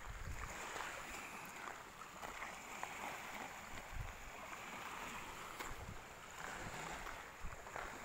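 Wind gusting on the microphone over a steady wash of small waves on the shore, with footsteps on the sandy path.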